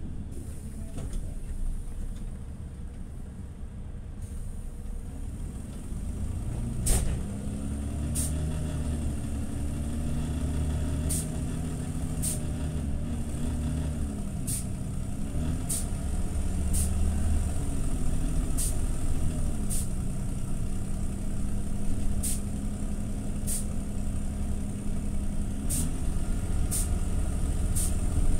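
TCV Karat city bus engine heard from inside the cabin while driving, its pitch rising and falling with the changes in speed, then running steady for several seconds; the uploader calls the engine sound extremely broken. Sharp clicks recur roughly once a second from about 7 s on, the first the loudest.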